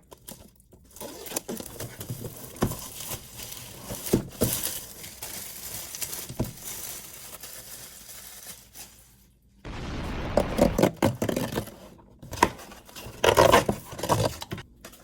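Packaging being handled and opened by hand: cardboard and plastic scraping, tearing and crinkling, with scattered small clicks. The noise grows louder about ten seconds in and again near the end.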